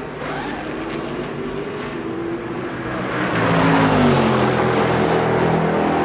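Race car engines running, one growing louder about three seconds in, its pitch sliding down around four seconds as it goes by.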